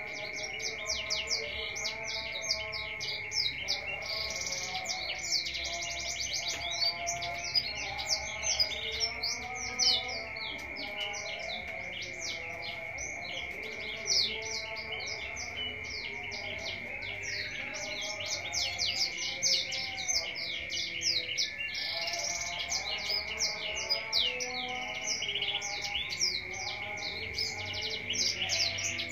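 Small caged songbird singing without pause: a rapid, dense stream of high chirps and trills over a steady high-pitched tone.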